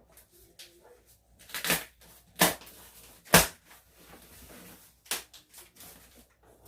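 Cardboard shipping box being forced open by hand: four sharp cracks and rips of cardboard with rustling between them, the loudest about three and a half seconds in.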